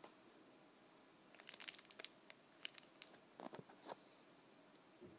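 Faint crinkling and clicking handling sounds: a cluster of crackly clicks about a second and a half in, then scattered clicks and a few soft rubs up to about four seconds in.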